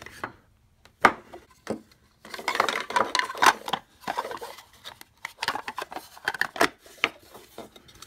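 Hands handling a Craftsman 19.2-volt battery pack and a plastic battery adapter: scattered hard plastic clicks and knocks with rubbing and scraping, including a sharp click about a second in.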